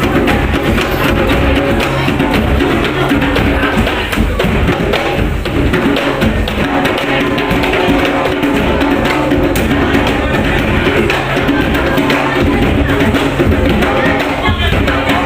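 Live gamelan music for a jaranan horse dance: drumming and rapid struck percussion over sustained ringing metallic tones, loud and unbroken.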